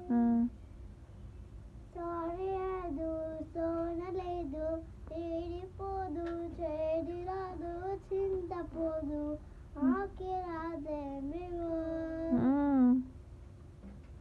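A young child singing a tune in a high voice, in several phrases of held notes with short breaks between them. The last phrase is the loudest and ends on a note that glides up and then down.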